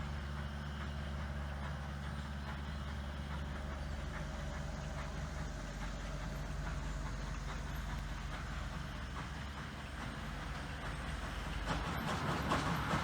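Steam-hauled passenger train on the line: a steady low rumble that grows louder about a second before the end, with quick rhythmic pulsing as the train comes close.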